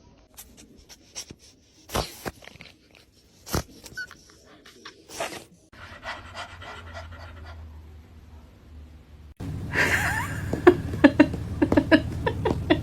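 A dog panting, with a few sharp knocks in the first few seconds; the panting turns louder and quicker about three-quarters of the way through.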